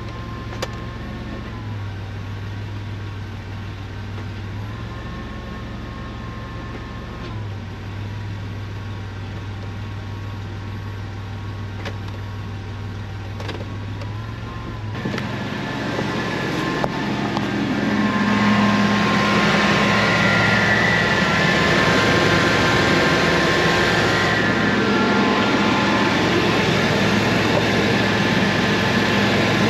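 1998 GMC Safari van's 4.3-litre V6 idling steadily after being freshly started with a new radiator, water pump and fan clutch, left running to burp the air out of the refilled cooling system. About halfway through, the sound changes abruptly and grows louder over a few seconds, with more rushing noise.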